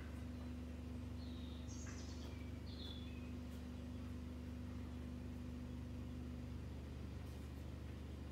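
A steady low hum with a higher steady tone that cuts out about six and a half seconds in, and a few faint high chirps between about one and three seconds in.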